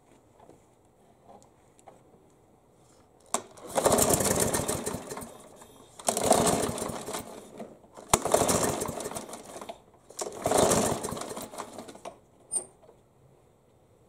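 Small four-stroke push-mower engine pull-started four times, firing and running for about two seconds each time before dying, after priming with fresh fuel to test a no-start.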